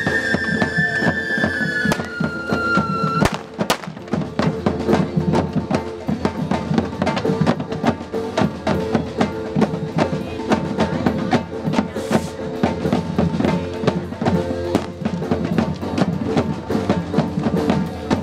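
Street drum troupe (timbalers) beating a dense, fast rhythm on bass and snare drums. In the first few seconds a falling whistle from a firework ends in a sharp bang.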